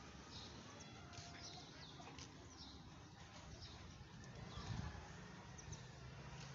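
Faint small-bird chirps, many short calls scattered throughout over low background noise, with a single low thump nearly five seconds in.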